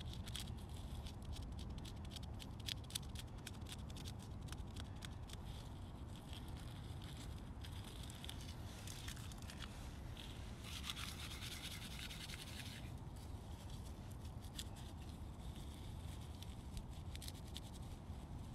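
Knife blade scraping and shaving thin dry kindling sticks, with small clicks of wood being handled; a longer spell of scraping comes about nine to thirteen seconds in.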